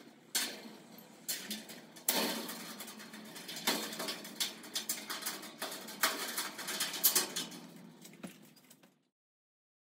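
Steel greenhouse frame strips clinking and scraping as they are handled, and a screw being turned into the joint with a screwdriver: a run of small metallic clicks and rattles. It cuts off suddenly about nine seconds in.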